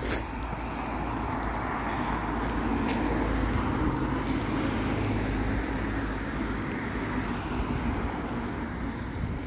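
A motor vehicle passing on a wet road: tyre and engine noise swells, is loudest a few seconds in, then slowly fades, over a low background rumble.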